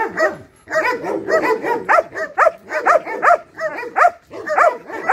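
A German Shepherd barking rapidly and repeatedly, about three to four barks a second after a brief pause near the start.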